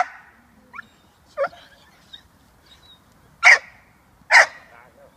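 A young American Staffordshire terrier barking in sharp single barks: one at the start, two more about three and a half and four and a half seconds in, with a few fainter short yelps in between.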